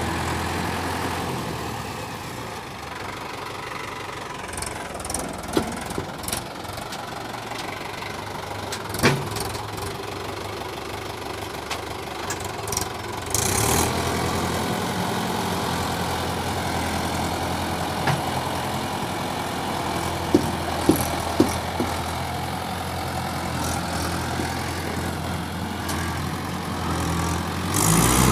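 Swaraj 843 XM tractor's three-cylinder diesel engine running steadily at idle, with scattered short knocks and clanks. About halfway through the engine gets louder and stays so.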